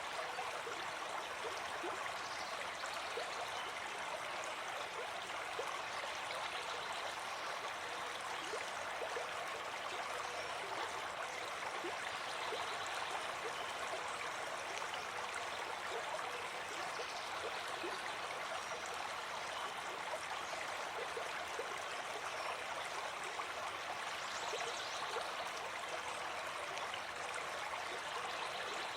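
Steady running water, a stream flowing and splashing, without pause.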